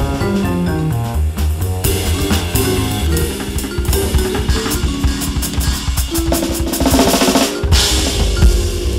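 Roland V-Drums electronic drum kit played in a jazz four-beat, the pads triggering the sound module's drum sounds, over a sequenced backing track from a Maschine Studio.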